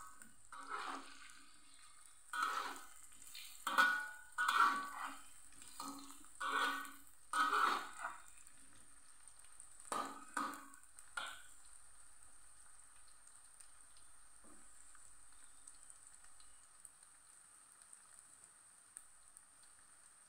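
Metal spatula scraping and stirring diced tempeh in a metal wok, about ten strokes in the first eleven seconds, over the sizzle of frying oil. After that only the quieter steady sizzle goes on. The tempeh is being fried only until half-cooked.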